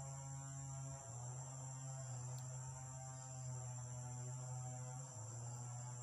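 A steady low hum with a stack of overtones, shifting slightly in pitch about a second in and again near the end, over a constant high-pitched insect buzz.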